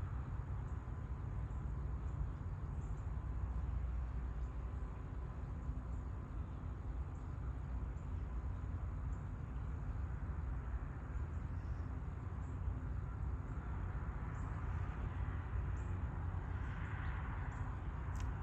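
Outdoor rural dawn ambience: a steady low rumble with a swelling whoosh of noise building up about three-quarters of the way through, faint high bird chirps scattered throughout, and a single sharp click near the end.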